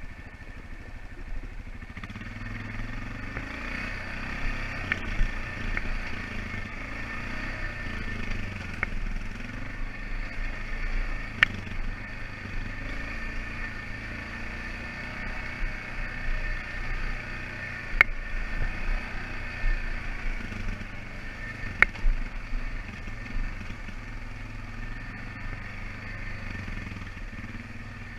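ATV engine running at a steady trail pace, its pitch rising and falling a little with the throttle. Several sharp clacks sound over it, the loudest about 11, 18 and 22 seconds in.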